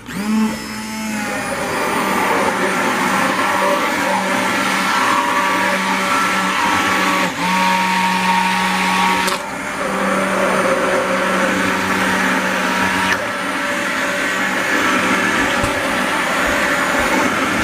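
Stick blender running, submerged in a crock pot of melted soap-making oils and mixing in kaolin clay: a steady motor hum that dips briefly a couple of times.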